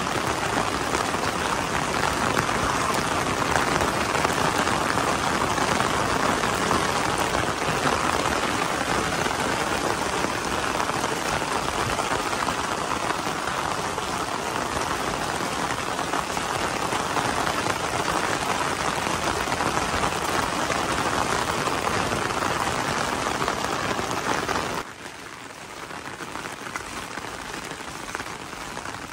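Steady rain drumming on an umbrella held overhead, a dense even patter. About 25 seconds in it drops suddenly to a quieter patter.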